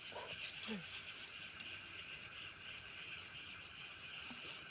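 Night insects, crickets, chirping: a steady rapid high pulsing, with a short trill repeating about every second and a half.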